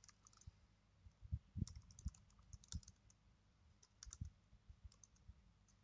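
Faint computer keyboard typing: irregular keystroke clicks in short runs with pauses between them.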